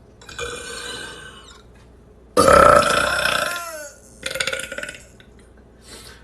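A person belching on command, three times: a moderate belch, then a long, loud belch of about a second and a half whose pitch falls as it ends, then a short one.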